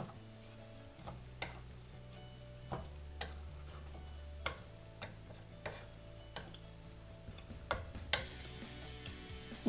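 A spoon stirring rice, broccoli and water in a pressure cooker, with sharp clinks of the spoon against the metal pot about once a second.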